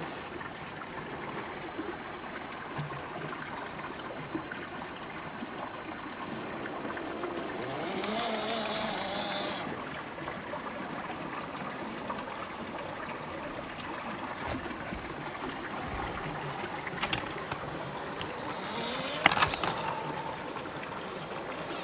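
A small stream running steadily over rocks, with the electric motor and gearbox of an Axial SCX10 III RC crawler whining in short spurts, rising in pitch near the end. A few sharp knocks come near the end.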